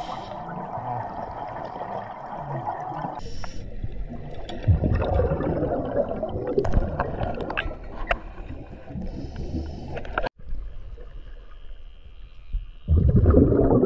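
Heard underwater: scuba divers' exhaled bubbles gurgling and rushing upward, with scattered clicks and knocks, the sound changing abruptly a couple of times. Near the end a louder surge of rushing water as the view rises under the boat's hull toward the surface.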